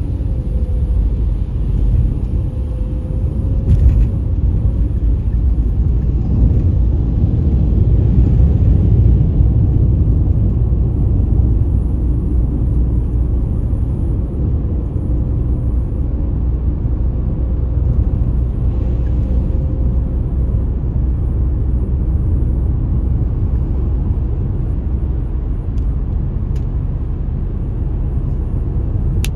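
Steady low rumble of tyre and engine noise inside a moving car at expressway speed, with a brief knock about four seconds in.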